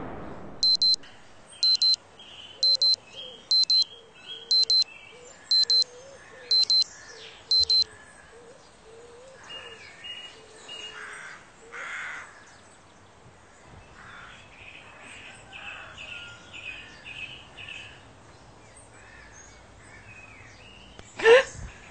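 Electronic alarm beeping in quick pairs, about one pair a second, stopping about eight seconds in. Birds chirp faintly in the background throughout.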